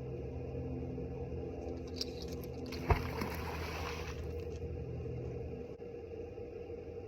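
A steady low engine-like hum that fades out near the end. About three seconds in there is a single sharp thump, followed by about a second of hissing, scraping noise.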